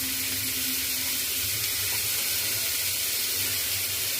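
Roughly chopped onions sizzling steadily in hot oil as they are lightly sautéed in the pan.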